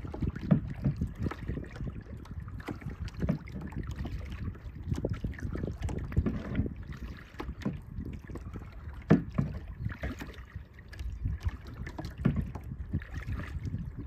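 Kayak being paddled: irregular splashes and knocks of the paddle and water around the hull, over a steady low wind rumble on the microphone.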